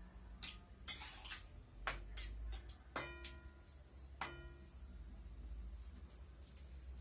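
A metal spoon or spatula knocking against a cooking pan several times while stirring a curry, the strikes about 3 and 4 seconds in ringing briefly.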